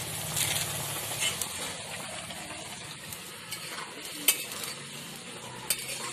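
Watery vegetable curry bubbling and hissing in a metal wok over a wood fire while a metal spatula stirs and scrapes it, with sharp clinks of spatula on pan, the loudest about four seconds in.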